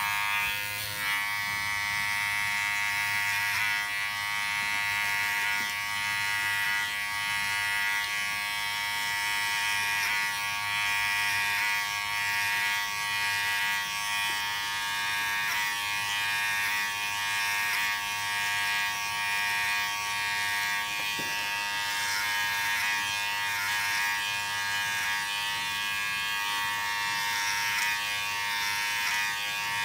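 Electric hair clippers switched on and buzzing steadily.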